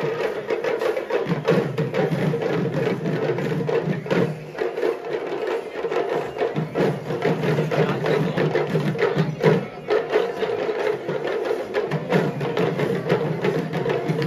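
Traditional Sri Lankan procession drumming: fast, dense drum strokes over a steady held tone.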